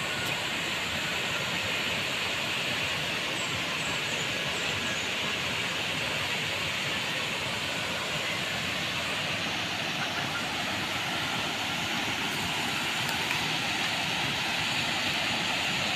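Steady, even rush of a wide curtain waterfall, falling water heard across the river.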